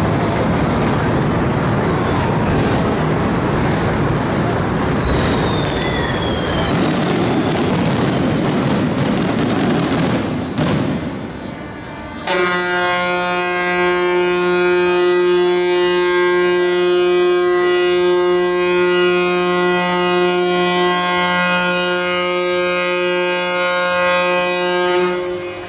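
A ship's horn sounding one long, steady blast of about 13 seconds, starting abruptly about halfway through, as part of a ship-launching salute. Before it there is a broad rushing noise with scattered sharp cracks.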